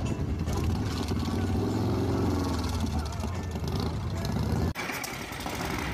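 Custom Harley-Davidson bagger's engine revving hard with rapid exhaust firing while it shoots flames from the exhaust, the revs rising and falling about two seconds in. Near the end the sound cuts abruptly to a quieter, steadier engine.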